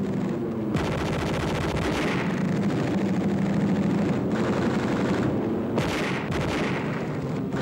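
Rapid machine-gun fire in long continuous bursts over a steady low hum, on an old wartime film soundtrack. The firing changes abruptly at cuts about a second in, past four seconds, near six seconds and near the end.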